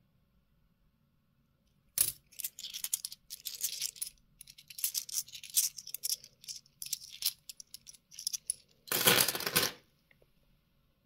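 2-euro coins clinking and rubbing against each other as they are handled and slid off a small stack in the fingers. A sharp click comes about two seconds in, then an irregular run of light chinks and scrapes, and near the end a louder, denser burst of coin noise lasting under a second.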